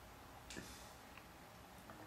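Near silence: room tone, with one faint, brief click about half a second in.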